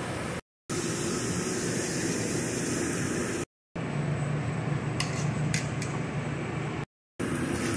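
Steady fan-like roar of commercial kitchen equipment, broken three times by short gaps of silence. About five seconds in come a few light metal clicks from steel tongs handling the grilled steaks over a wire rack.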